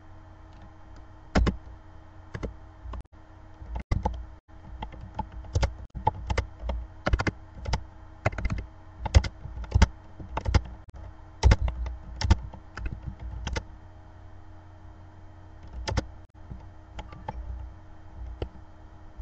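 Typing on a computer keyboard: irregular key clicks, coming in a quick flurry through the middle and thinning out near the end, over a faint steady hum.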